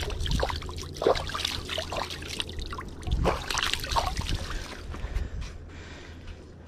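Hands splashing in river water, scooping it up and letting it dribble and spatter back, as when rinsing the hands. The irregular splashes die away about five seconds in.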